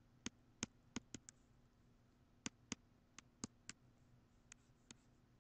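About a dozen sharp clicks from a stylus pen tapping on a tablet screen while writing by hand: five quick ones in the first second, five more in the middle, and two near the end, over a faint steady hum.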